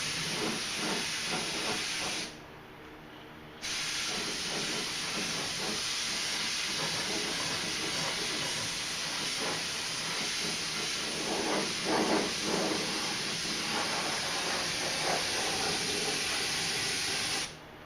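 Compressed-air paint spray gun spraying clear coat, a steady hiss that stops briefly about two seconds in, resumes a second and a half later, and cuts off near the end as the trigger is released.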